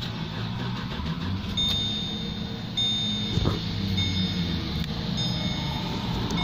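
Holden VE Commodore's 3.6-litre LLT V6 idling steadily just after being started, with the car's warning chime beeping repeatedly at a high pitch over it.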